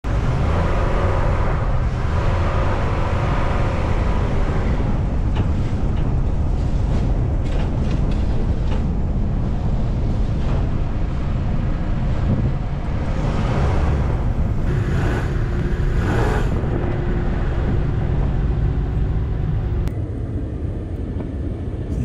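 Car driving over snowy streets, heard from inside the cabin: a steady low rumble of tyres and engine. The sound drops a little near the end.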